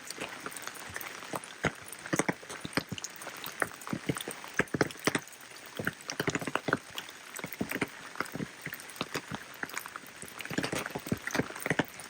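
Rain falling steadily, with many close drops and drips striking hard surfaces as loud, irregular ticks over a soft hiss.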